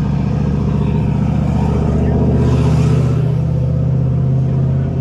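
A car engine idling steadily, with a brief hiss about two and a half seconds in.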